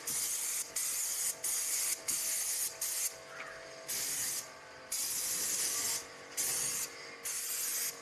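Graco 390PC airless paint sprayer's gun spraying paint in strokes: a loud hiss from the spray tip that stops and starts about every second, with a faint steady hum underneath.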